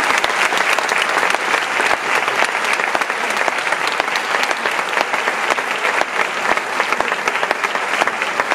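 Large audience applauding steadily, many hands clapping in a dense, even wash.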